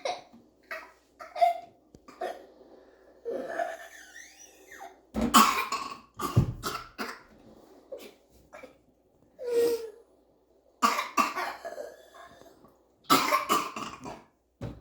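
A person's coughing fit on first waking up: harsh coughs coming in bouts of several, a few seconds apart, with strained, wheezy breaths drawn in between the bouts.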